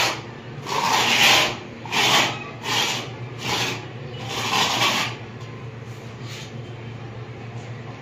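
Metal putty knife scraping wall putty across a rough cement wall: about five separate scraping strokes in the first five seconds, then fainter scraping.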